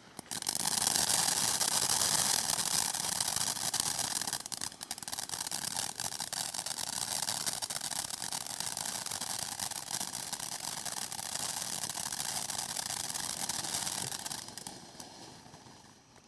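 Firework fountain (Brothers Fireworks Totally Circus) spraying with a loud, steady hiss that starts suddenly just after the beginning and dies down near the end.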